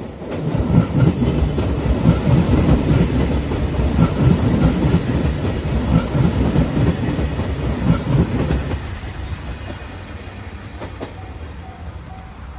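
JR Shikoku 2700 series diesel limited express train passing at speed, wheels clattering over the rail joints with the diesel engines running under them. Loud for about nine seconds, then fading away as the train goes by.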